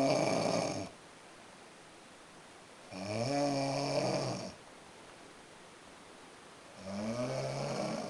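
Loud snoring in long, pitched snores about four seconds apart. Each snore rises in pitch at its start and then holds. One snore ends about a second in, the next comes around three to four and a half seconds, and a third starts near the end.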